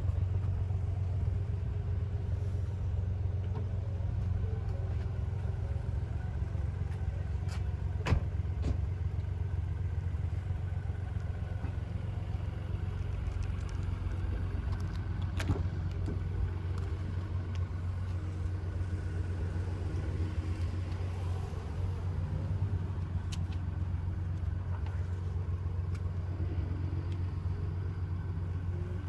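Ford Puma ST's 1.5-litre three-cylinder turbo petrol engine idling steadily, with a couple of short clicks.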